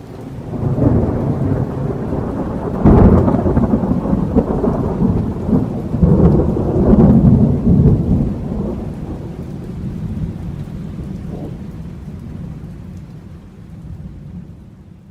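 Thunder: a loud, sharp crack about three seconds in, then heavy rolling rumbles that slowly fade away.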